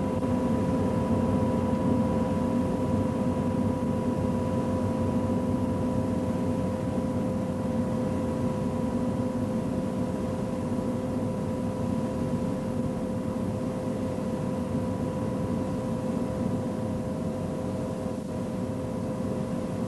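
Steady drone of an aircraft in flight, with a constant whine over a low rumble, easing slowly.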